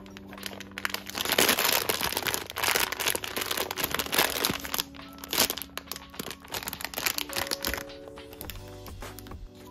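Foil blind-box bag crinkling loudly as it is handled and torn open, over background music that carries on alone for the last couple of seconds.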